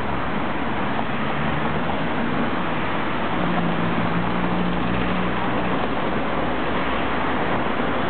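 Steady city road traffic noise: a constant rush of passing cars, with a low engine hum strongest in the middle.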